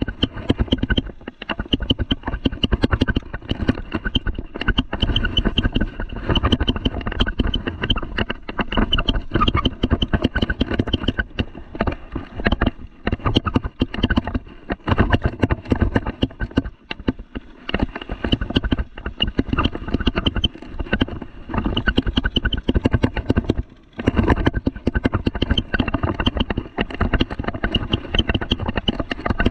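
Mountain bike rolling over a rough dirt and grass trail, heard through a handlebar-mounted camera: continuous rattle and clatter of the bike with wind rumble on the microphone, easing briefly a few times.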